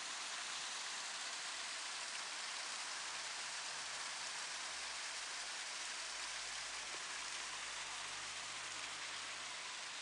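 Small garden waterfall spilling over stacked stone slabs into a pond: a steady rush of falling, splashing water.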